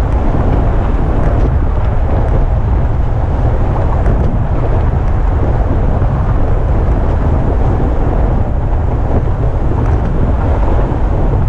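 Steady low rumble of road traffic running in the lanes alongside, mixed with wind noise on the microphone.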